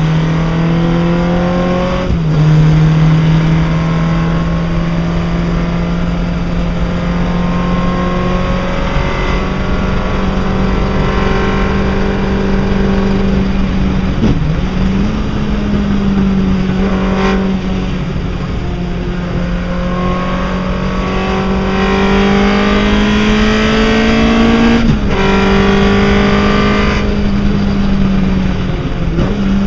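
Chevron B8 sports-racing car's engine heard from the passenger seat at speed, its pitch climbing steadily under power and dropping sharply at gear changes, about two seconds in, briefly around the middle and again near the end, over constant wind and road noise.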